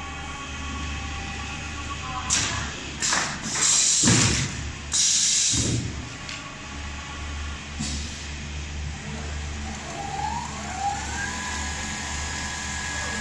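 Automatic industrial sewing machine running with a steady hum. From about two to six seconds in come several loud, noisy bursts. Near the end a motor whine rises in pitch and settles into a steady tone.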